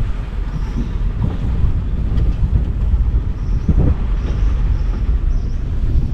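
Safari jeep driving along a jungle dirt track: a steady low rumble of engine and tyres.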